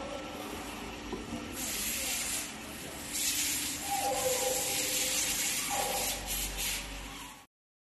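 Steady hissing of water spray and machine noise from a wet stone-cutting machine, starting about one and a half seconds in and growing louder about three seconds in, with faint voices underneath; the sound stops abruptly near the end.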